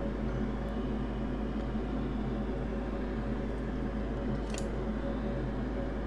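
Steady low machine hum, with one light click about four and a half seconds in.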